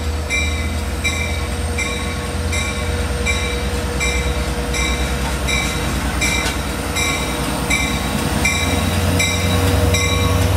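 A stationary DM30AC diesel locomotive's engine running with a steady low rumble, while a locomotive bell rings evenly about twice a second.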